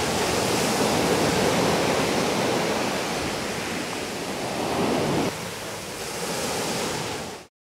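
Small waves breaking and washing up a beach, a steady rushing surf that stops abruptly near the end.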